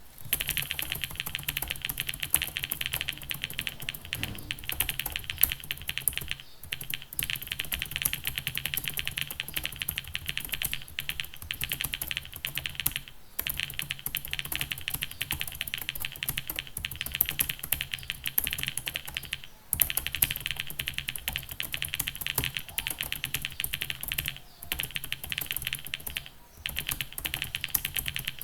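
Computer keyboard typed on rapidly and continuously, at about 86 words a minute, a fast stream of key clicks broken by a few brief pauses.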